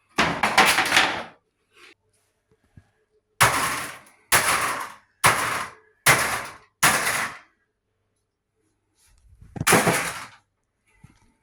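Seven sharp bangs, each dying away over about half a second: one at the start, five in a steady run of about one a second in the middle, and one more near the end.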